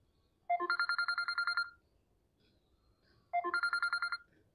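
A phone ringtone trilling in two rings about three seconds apart, each a rapid warbling tone lasting just over a second.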